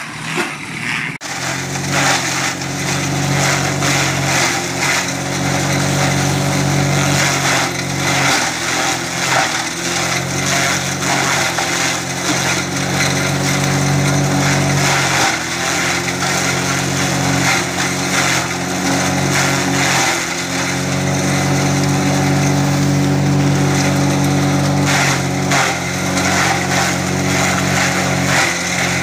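Electric-motor 9ZF-7 chaff cutter running under load, chopping green corn stalks fed into its hopper: a steady machine hum under a dense crunching rattle of cutting. The hum dips in pitch briefly a few times.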